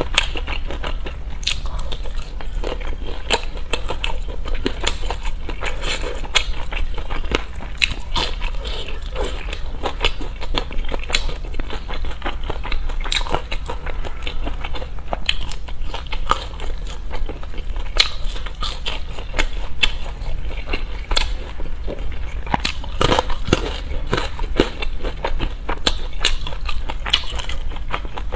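Close-miked eating: crunchy food being bitten and chewed, a dense run of irregular crackling crunches, over a steady low hum.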